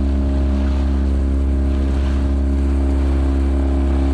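Outboard motor of an inflatable boat running at a steady cruising speed, a constant even drone with a hiss of water and wind beneath it.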